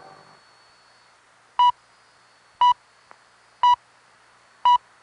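The BBC's Greenwich Time Signal, "the pips", received over shortwave radio: four short, identical high beeps exactly one second apart, over a faint background of hiss.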